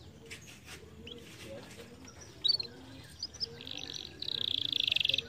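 Domestic canary singing: a few short high chirps, then a fast, even trill that starts about three and a half seconds in and gets louder near the end.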